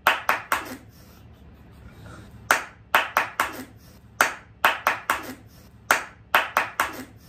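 Hand claps in short quick groups of three or four, with a pause of about two seconds after the first group.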